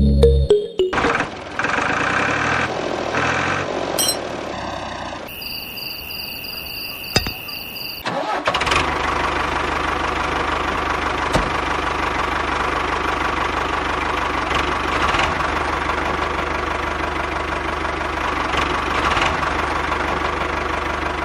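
A small engine running steadily, broken a few seconds in by a short edit with a few high electronic tones. The engine comes back and runs evenly to the end.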